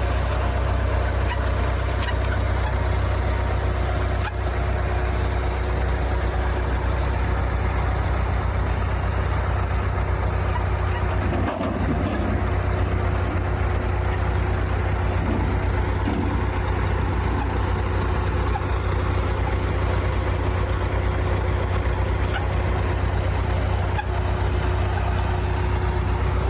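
Construction machinery engine running steadily: a low, continuous rumble with a constant tone over it.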